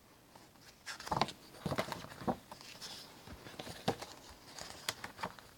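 Paper recipe booklet being handled and its pages turned: a few brief, irregular rustles and soft taps.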